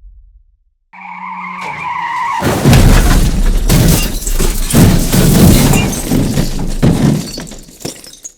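Car tyres screeching in a skid for about a second and a half, then a loud car crash: a long run of crunching impacts with shattering glass that dies away near the end.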